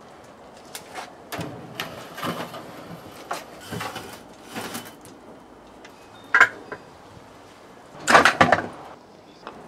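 Hand tools and metal parts being handled: scattered clinks and knocks, a sharp knock about six and a half seconds in and a cluster of louder knocks about eight seconds in.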